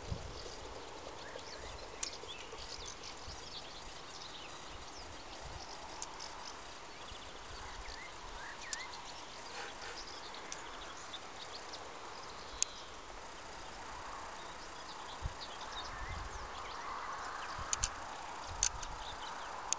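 Swallows twittering in short, high chirps, with a few sharp clicks and some low bumps on the microphone in the last few seconds.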